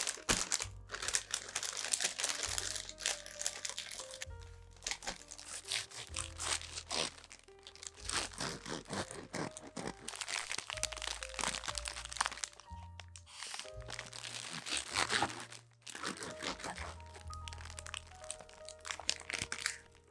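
Printed sandwich-wrapping paper crinkling and rustling as it is folded around a sandwich, then a bread knife sawing through the paper-wrapped sandwich with crunchy strokes. Background music with gentle piano-like notes plays throughout.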